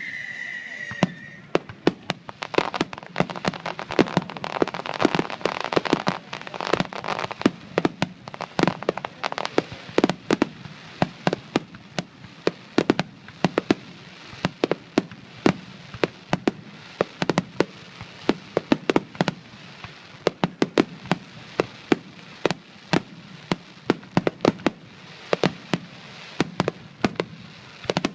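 Fireworks going off in rapid succession: many sharp bangs and pops, several a second, over a steady crackle.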